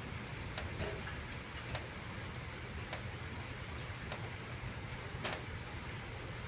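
Light rain during a thunderstorm: scattered drops ticking at irregular moments over a steady low rumble.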